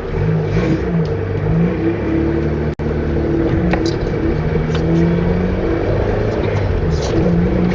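Fiat Panda 4x4's petrol engine running and revving up and down as the car drives through flood water, heard from inside the cabin.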